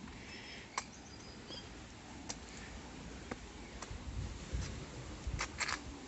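Scattered sharp clicks and knocks from walking over beach boulders with a handheld phone, with a quick cluster of them near the end and a low rumble about four to five seconds in.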